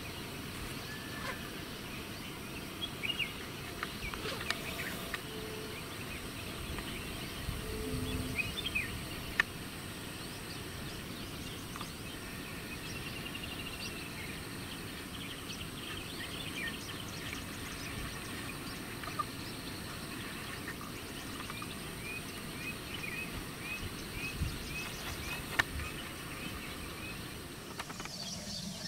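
Countryside ambience: assorted birds chirping and calling over a steady background hiss, with a run of short repeated notes about two a second late on.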